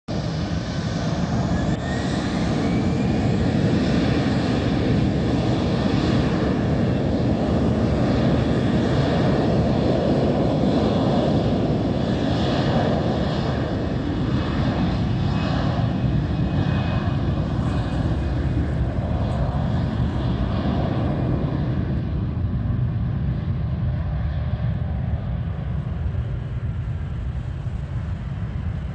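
Airplane engines running loud and steady, with a faint rising whine in the first few seconds; the higher part of the sound fades over the last several seconds.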